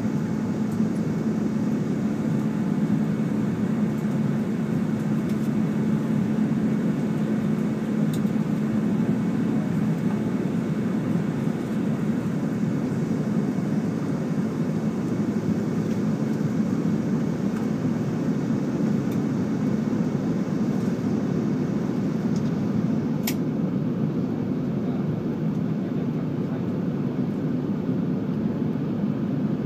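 Airbus A380-841 cabin noise while climbing out after take-off: its Rolls-Royce Trent 900 engines and the airflow heard through the fuselage as a steady rush with a low hum that weakens about halfway through. A single brief high click about two-thirds of the way in.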